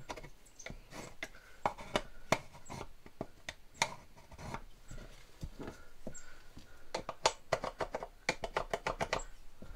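Irregular sharp clicks and taps of a plastic electrical box and pencil against drywall as the box's outline is traced on the wall, with a few louder knocks.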